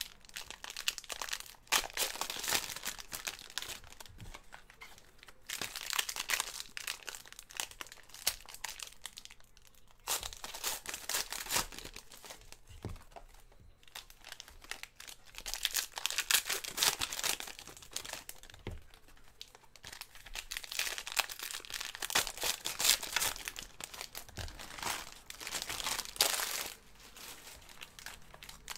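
Foil trading-card pack wrappers being torn open and crinkled by hand, in repeated spells of crackling with short pauses between.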